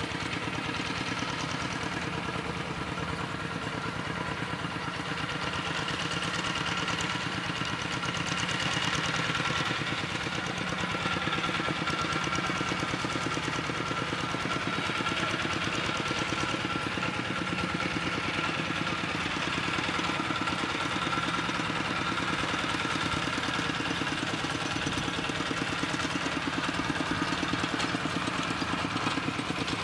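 An engine running steadily at an even speed with a fast, regular pulse.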